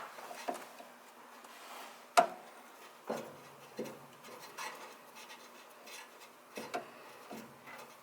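Work on a carburetor's fuel line by hand and with tools: scattered light clicks, taps and rubbing of metal and hose. The sharpest knock comes about two seconds in.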